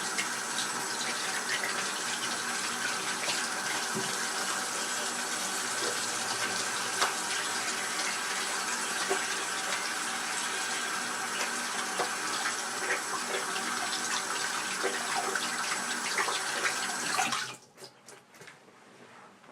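Water running from a sink tap into the basin, a steady splashing hiss, which stops abruptly near the end and is followed by a few faint drips and trickles.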